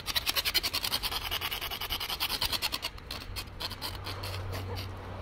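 Plastic ruler edge scraped rapidly against chain-link fence wire, shaving the plastic into a deckle edge. The rasping strokes come about seven a second and thin out about three seconds in. A low hum comes up near the end.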